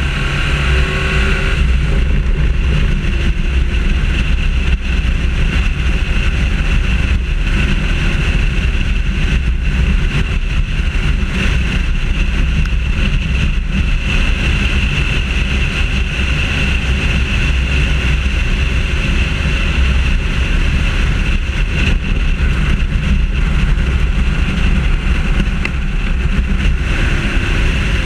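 Holden VY Commodore with its Ecotec V6 running at racing speed, heard as a steady low rumble of engine, tyres and wind through a camera mounted low on the car; the engine pitch shifts briefly in the first second or two.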